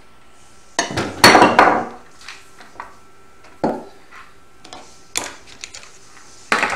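Knocks and clatter of a metal-framed 3D printer and tools being moved about on a wooden workbench: a loud burst of several knocks about a second in, then scattered single clicks and taps.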